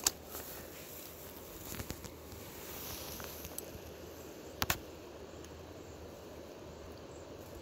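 Steady rush of flowing creek water, with a few sharp clicks and taps from handling the landing net and fish, the loudest a quick double click about halfway through.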